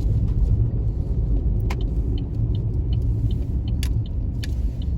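Car driving on a snowy road, heard from inside the cabin: a steady low engine and tyre rumble, with light ticking about three times a second in the second half and a few sharp clicks.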